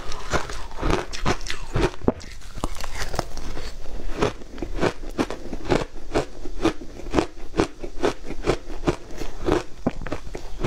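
Shaved ice being bitten and chewed with crisp, crackling crunches, several a second, as mouthfuls of ice are broken up between the teeth.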